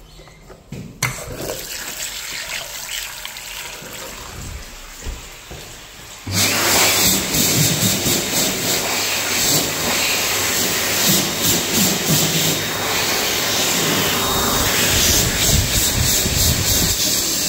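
Water runs for about five seconds. About six seconds in, an electric hand dryer switches on abruptly and blows loudly and steadily.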